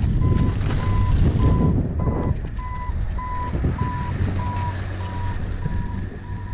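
A reversing alarm beeping steadily, one short tone of the same pitch a little under twice a second. Under it is the low rush and scrape of skis running on snow.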